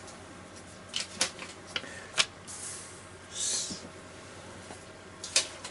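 Paper yen banknotes being handled and laid down on a desk mat: a few sharp crisp paper clicks and two short rustles.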